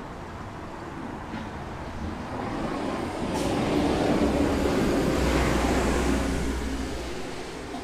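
A road vehicle passing by: a rushing noise with a low rumble that swells from about two seconds in, peaks in the middle and fades away near the end.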